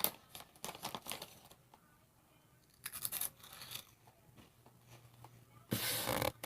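A crinkly snack bag of Hot Fries rustling and crackling in three short bursts, as the bag is handled and reached into.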